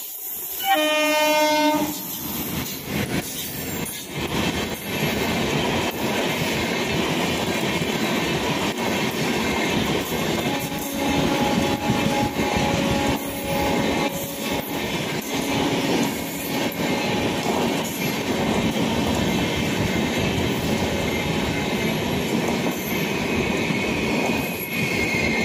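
The locomotive of the Pashchim Superfast Express gives one horn blast about a second long, near the start. Then its passenger coaches pass close by on the nearby track, wheels clattering steadily over the rail joints. A high wheel squeal rises near the end.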